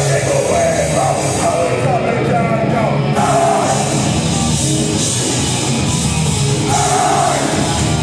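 Punk rock band playing live through a club PA: loud distorted electric guitars and drums under a shouted lead vocal.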